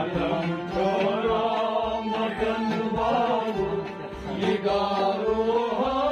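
Harmonium playing a sustained melody in a devotional kalam, with a voice drawing out long gliding notes over it and a drum keeping a steady beat underneath.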